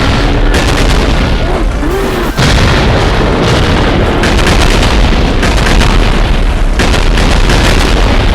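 Anime stomach-growl sound effect, played very loud: a low rumble with a few short squeaky gliding gurgles in the first two seconds, then a dense, steady rumbling from about two and a half seconds in.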